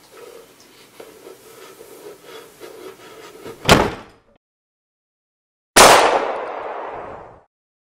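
A sharp crack a little under four seconds in, then, after two seconds of dead silence, a loud pistol shot whose noisy tail dies away over about a second and a half and cuts off abruptly.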